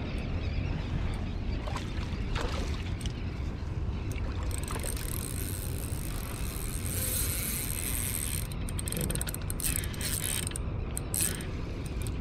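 Spinning reel being worked as a hooked halibut is brought in on light line: a high-pitched mechanical whirr about four seconds in that breaks into clicking near the end, over a steady low rumble.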